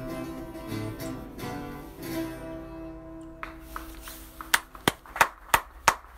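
Acoustic guitar strummed through the closing chords of a song, the last chord ringing out and fading. From about four and a half seconds in, steady hand clapping starts at about three claps a second, louder than the guitar.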